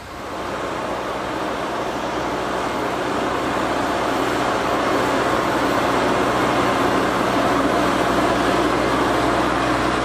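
Merlo MultiFarmer 40.9CS telehandler's diesel engine running steadily under load while pulling a four-furrow plough. It jumps up at the start and grows louder as the machine comes close.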